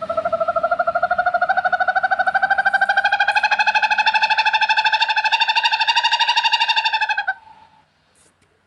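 Owl giving one long, even trill of rapid pulses, about fourteen a second, creeping slightly up in pitch and cutting off after about seven seconds.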